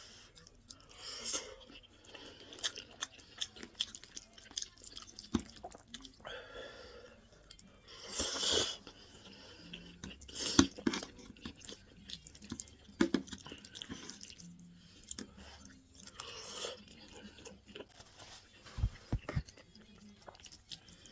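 A person chewing creamy chicken pasta and mushrooms: irregular wet mouth sounds and small clicks, with a few louder noisy bursts about 8, 10 and 16 seconds in.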